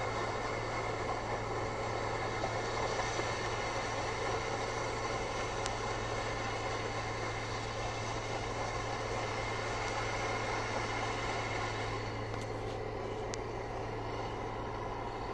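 Sugar cane harvester and the tractor hauling its bin, running together while cutting cane: a steady drone of heavy diesel machinery.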